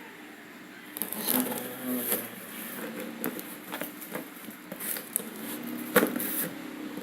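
Cardboard packaging being handled and pulled open: rustling and scraping with scattered knocks, one sharp knock about six seconds in.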